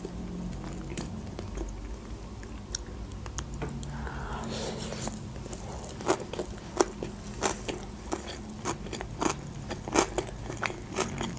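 A person chewing a mouthful of sushi roll: wet mouth clicks and smacks, more frequent in the second half.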